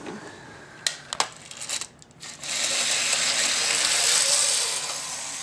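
A few plastic clicks as the toy train is set on the track, then about two and a half seconds in a battery-powered Power Trains toy bullet train starts running at low speed, its small motor and wheels on the plastic track giving a steady whir.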